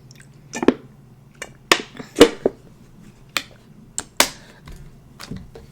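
Close-miked eating sounds: about ten sharp, irregularly spaced crunches and mouth clicks while chewing, the loudest a little after two seconds in.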